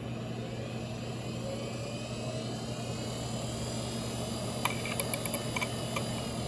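Seagate Medalist ST34342A hard drive spinning up with a rising whine, then a quick run of ticking clicks from the heads about five seconds in, and the whine starting to fall near the end. It is the drive's failure loop: it cannot read, so it keeps powering itself off and back on.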